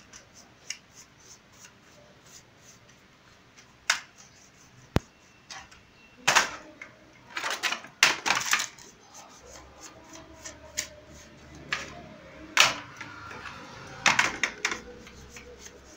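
Black metal baking trays clattering and knocking as they are set down and stacked, with sharp clicks as pastry pieces are laid on them, in irregular clusters.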